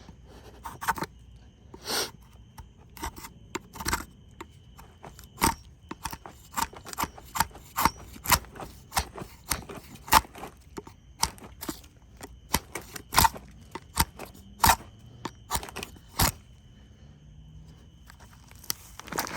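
Drawknife blade shaving curls off wood: a run of short, sharp scraping strokes, one or two a second, which pause a few seconds before the end and start again briefly.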